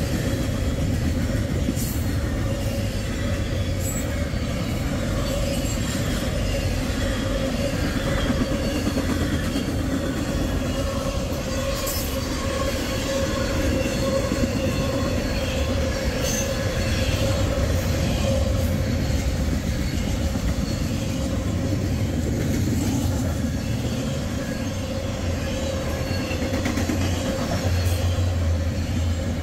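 Double-stack intermodal freight train rolling past: a steady rumble of wheels on the rails with a continuous whine from the wheels squealing, and a few sharp clanks as the cars go by.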